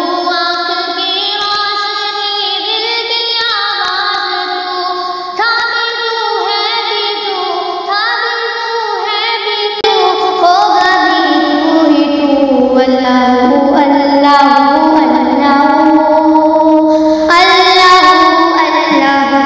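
A high voice singing an Urdu hamd (a naat-style devotional song in praise of God), with long held, ornamented notes; it gets louder about halfway through.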